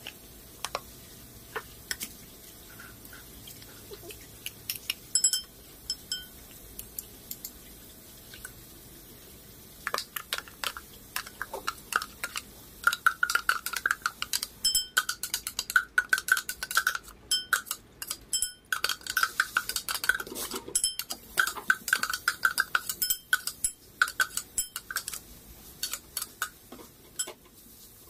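A spoon scraping and knocking spice paste out of a mini chopper bowl into a ceramic bowl. There are scattered clicks at first, then from about ten seconds in a quick run of clinks, many with a short ringing tone.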